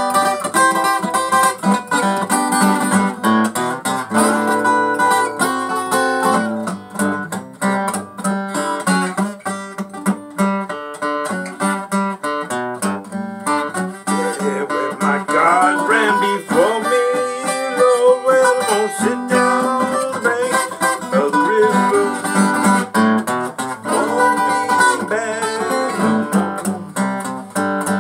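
Takamine EF360STT acoustic-electric guitar, its sides cracked, being picked and strummed through a blues tune.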